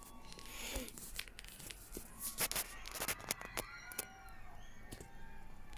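Background ambience: scattered sharp clicks and taps, with short rising-and-falling chirp-like calls and faint voices.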